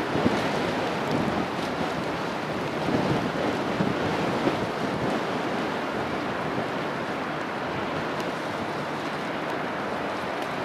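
Steady rushing of wind and sea water, with small gusts now and then and no clear tone.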